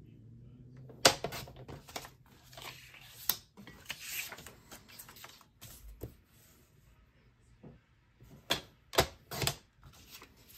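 Paper trimmer being worked: sharp clicks and knocks from its sliding blade carriage, a scraping rasp as the blade runs along a strip of designer paper, and paper being shifted on the trimmer bed. The loudest clicks come about a second in and in a quick cluster near the end.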